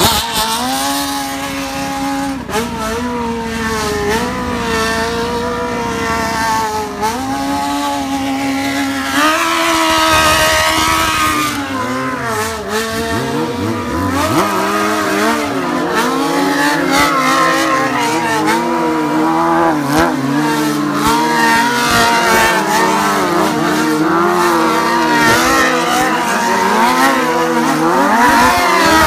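Several sport motorcycle engines revving hard and held at high revs, their pitch wavering up and down, with two or more engines overlapping from about halfway and climbing near the end. This is typical of bikes held on the rev limiter during a burnout stunt.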